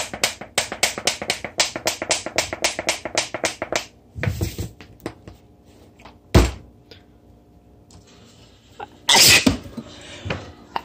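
A lemon pepper seasoning shaker being shaken in quick rattling strokes, about six a second, which stop about four seconds in. A single sharp knock follows a couple of seconds later. Near the end comes a loud sneeze.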